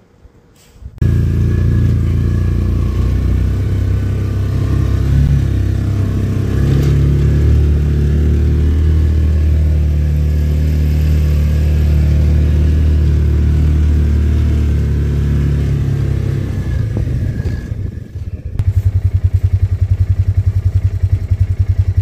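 Side-by-side utility vehicle's engine running under way, a loud low drone that rises and falls a little in pitch. About three-quarters of the way through it changes to a fast, even pulsing.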